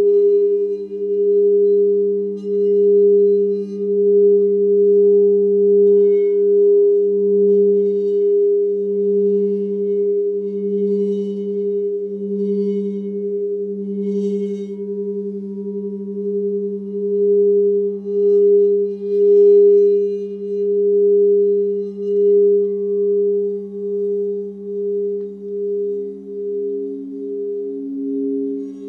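Meditation soundscape of sustained pure tones at the 432 Hz and 528 Hz healing frequencies, with the tone near 432 Hz the strongest. A lower tone swells and fades in slow, even pulses, and faint high tinkling notes come and go.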